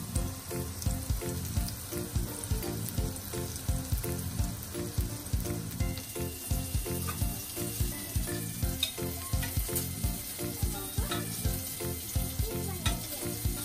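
Chicken patties sizzling in shallow oil in a nonstick frying pan. Background music with a steady beat runs underneath.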